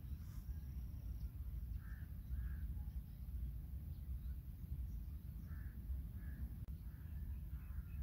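Outdoor ambience: a steady low wind rumble on the microphone, with faint bird calls that come in short pairs a few times, crow-like caws. The knife cutting through the chicken is not clearly heard.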